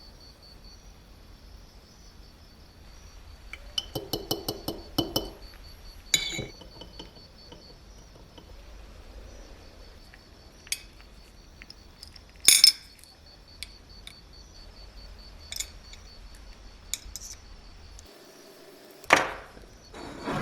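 Small metal parts clicking and clinking as they are handled, in scattered bursts: a quick run of clicks about four seconds in, with the loudest clink about twelve and a half seconds in, over a faint steady high whine.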